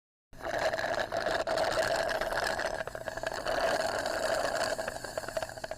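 A motor engine running steadily with a fine rattle. It starts abruptly just after the opening.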